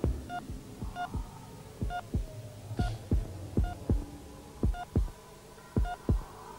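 A heartbeat thumping in close pairs, about once a second, with a hospital heart monitor's short beep sounding on many beats, over a low steady hum.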